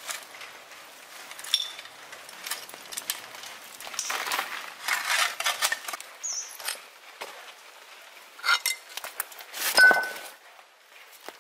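Utensils clinking and scraping against cookware, in scattered knocks, with a short ringing clink near the end.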